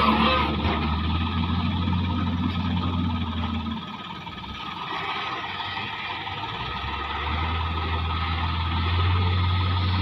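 Heavy diesel engine running with a steady low hum. It eases off about four seconds in and builds back up about three seconds later.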